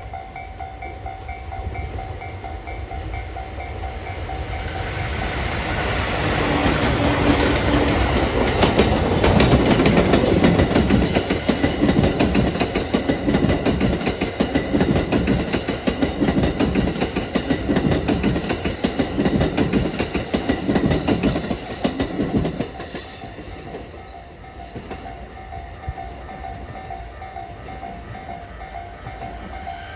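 Japanese level-crossing warning bell ringing in a steady repeating tone while a JR Freight DD200 diesel-electric locomotive hauling new, unpowered E233-series green cars approaches and passes. The locomotive and wheels build to a peak about ten seconds in, followed by rhythmic wheel clatter over rail joints until the train clears about twenty-three seconds in, leaving the crossing bell ringing.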